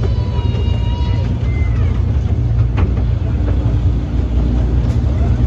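Small park toy train running along its narrow track, a steady low rumble heard from aboard one of its carriages, with a single sharp click about three seconds in.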